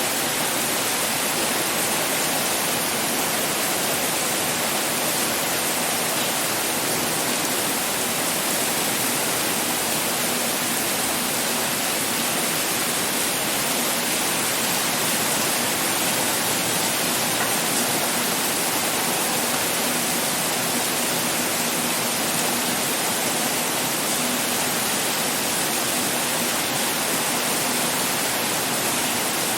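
Heavy rain pouring down as a steady, dense hiss with no letup.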